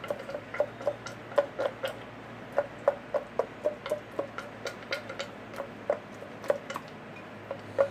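Black pudding filling being pushed down through a funnel into sausage casing, giving a quick run of small clicks, about three or four a second.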